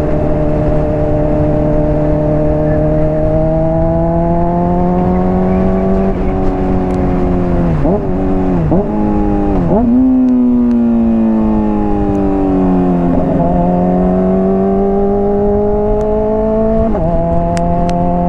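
Honda CBR600RR inline-four running through a slip-on exhaust while riding, revs climbing slowly, then three quick upshifts a little under a second apart, each a sharp drop in pitch, followed by falling revs as the throttle eases off. Near the end the note steps up to a higher steady pitch.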